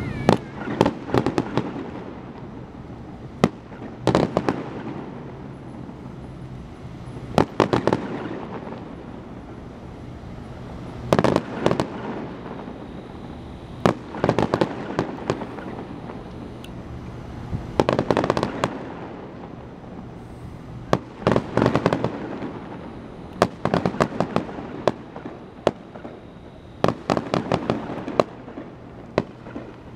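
Aerial firework shells bursting overhead: clusters of sharp bangs and crackling every two to four seconds through a public display.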